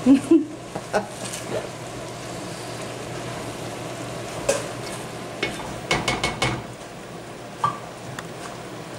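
Risotto simmering with a steady sizzling hiss in a wide enamelled cast-iron pan, while a spoon stirs and knocks against the pan in the first second or so. Scattered clicks follow, with a quick run of them about six seconds in.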